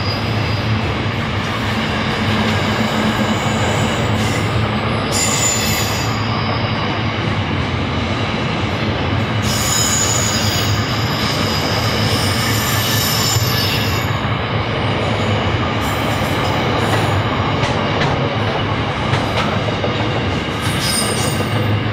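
Container wagons of a long freight train rolling past: steady wheel-on-rail running noise, with brief high-pitched wheel squeals several times, about five seconds in, around ten to fourteen seconds, and again near the end.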